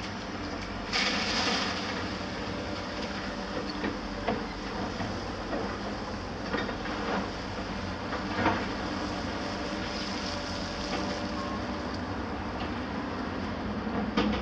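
Heavy demolition machinery running steadily: diesel engines of excavators and a tracked mobile rubble crusher. A hiss rises about a second in, and several sharp clanks of concrete rubble are knocked about, the loudest a little past halfway.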